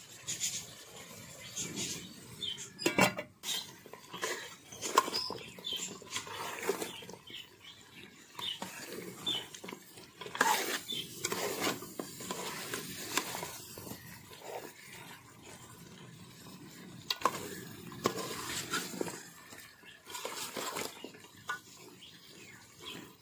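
A metal ladle stirring a thick lotus-stem and meat curry in a metal pot, scraping and knocking against the pot's sides and bottom in irregular clinks and scrapes, a few of them ringing briefly.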